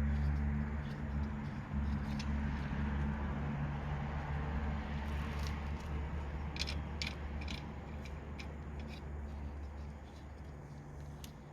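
Steady low mechanical hum, like a running engine, that slowly fades, with a short run of sharp clicks about halfway through.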